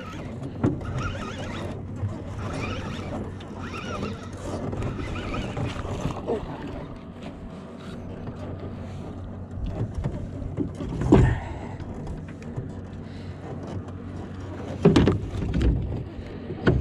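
Water sloshing against a kayak with small clicks and rattles of handling, and two louder knocks, one about eleven seconds in and one about fifteen.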